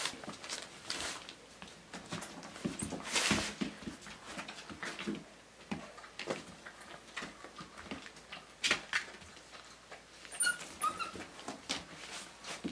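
Husky puppy dragging a blanket with a Great Dane puppy on it: scattered scuffles and fabric rustles, with a few brief high puppy whimpers near the end.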